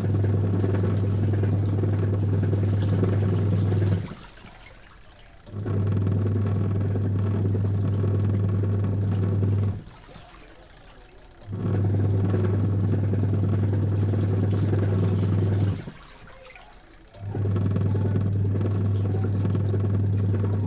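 Factory machinery running in a regular cycle: a steady low hum with rougher noise over it runs for about four seconds, drops off for about a second and a half, and starts again, four times over.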